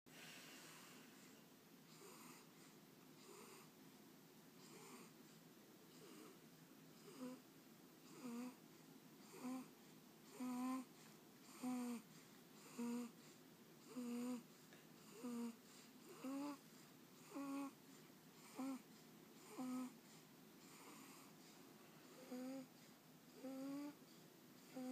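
Two-month-old baby snoring in her sleep: a short, pitched snore on each breath, about one a second, faint at first and louder from about seven seconds in.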